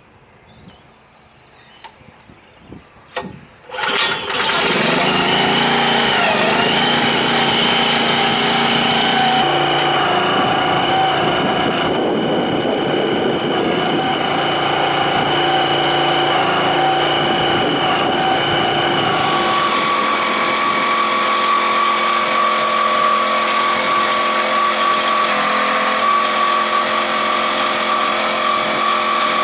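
Small single-cylinder petrol engine powering a cable drum trailer's hydraulic unit: a few clicks, then it starts about four seconds in and runs steadily and loud, its tone shifting twice as the hydraulics work.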